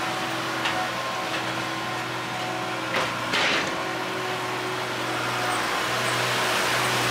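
Skid steer engine running steadily, with a couple of short knocks about three seconds in.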